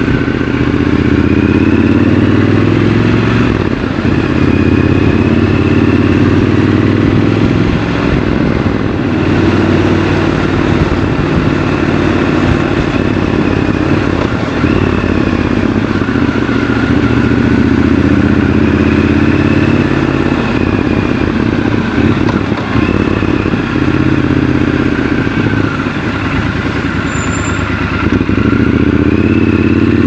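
Triumph Scrambler 1200 XC's 1200 cc parallel-twin engine running on the move, its revs climbing and dropping several times as the bike accelerates, shifts and eases off, over a steady haze of wind and road noise.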